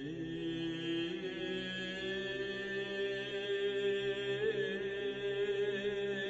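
Background music: a slow vocal chant of long sustained notes that step to a new pitch now and then.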